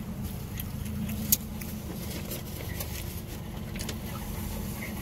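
Steady low hum of a car's cabin with the vehicle running, overlaid by a few light clicks and taps as chicken nuggets and a plastic sauce cup are handled. The sharpest click comes about a second in.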